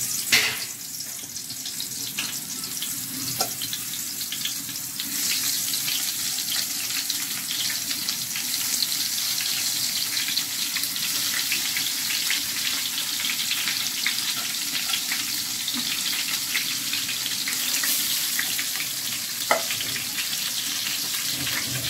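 Brinjal slices coated in turmeric and salt frying in hot mustard oil, a steady crackling sizzle that grows louder about five seconds in as more slices go into the pan. A few faint knocks sound over it.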